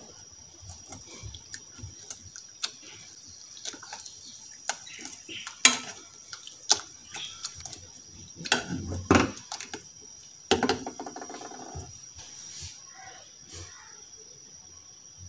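Wire potato masher mashing cooked strawberries in syrup in an aluminium saucepan: irregular clicks and knocks of the masher against the pan with wet squashing, over a steady high-pitched whine.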